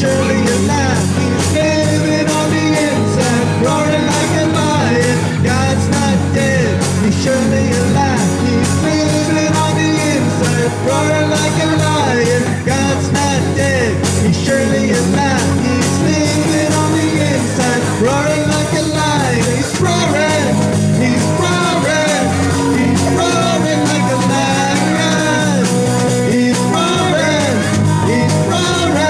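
Live amateur band playing an upbeat worship rock song on drum kit, bass guitar, electric guitar and saxophone, amplified through PA speakers.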